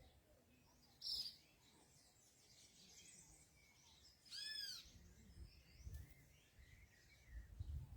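Faint wild birds calling: a short high chirp about a second in, then a quick run of arched whistled notes about four and a half seconds in. A low rumble comes in near the end.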